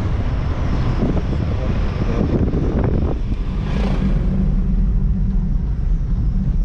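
Small hatchback driving along a road. For about the first three seconds wind buffets the outside-mounted microphone. After that comes steadier engine and road noise, heard from inside the cabin.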